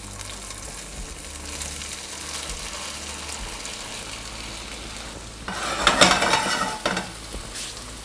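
Boiled potato gnocchi frying in hot olive oil in a nonstick pan, with a steady sizzle. About five and a half seconds in it grows louder and rougher as the gnocchi are tossed in the pan.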